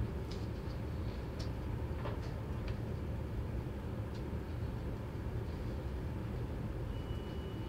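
Steady low rumble of hospital room background noise with a few faint clicks, and a thin high beep lasting about a second near the end.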